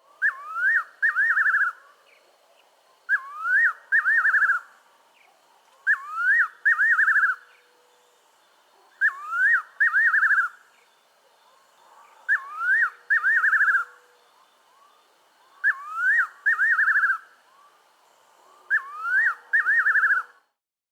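Fiery-necked nightjar singing its whistled 'good Lord, deliver us' song: seven phrases about three seconds apart, each a rising whistle followed by a quavering, falling run of notes.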